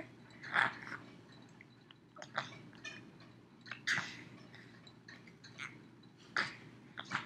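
Five-month-old baby's short mouth and breath sounds in about five brief, scattered bursts. The loudest come a little over half a second in and about four seconds in.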